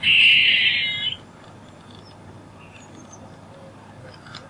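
A squirrel calling: one loud call about a second long, fading a little before it stops, followed by faint background with a few small high chirps.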